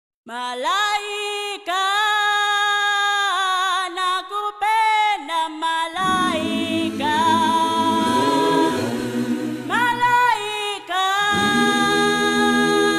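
Intro music: a cappella singing, a high voice holding long, sustained notes, with lower parts joining about halfway through.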